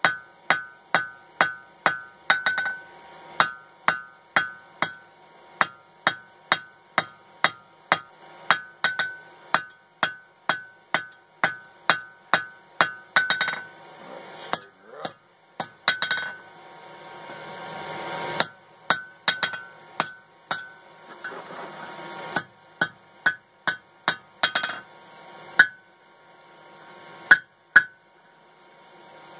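Blacksmith's hand hammer striking red-hot coil-spring steel on an anvil in a steady rhythm of about two to three blows a second, each blow with a bright anvil ring. A few stretches of hissing noise come between the runs of blows, and the blows become sparse near the end.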